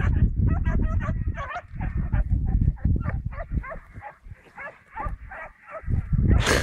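Several dogs barking and yelping in quick short barks, a few each second, as they chase cattle. A louder noisy burst comes just before the end.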